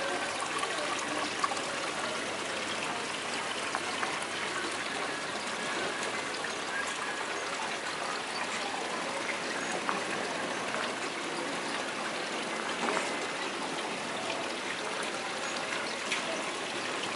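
Steady trickling of running water, with small scattered ticks.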